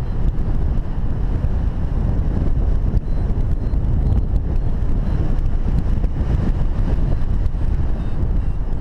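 Airflow of paragliding flight buffeting the camera's microphone: a steady, deep rushing wind noise.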